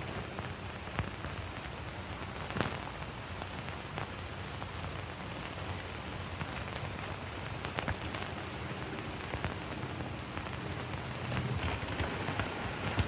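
Steady hiss with scattered crackles and pops, the background noise of an old film soundtrack.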